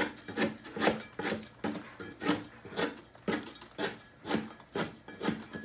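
Popcorn ceiling texture being scraped off by hand with a scraper in short, quick strokes, about two a second.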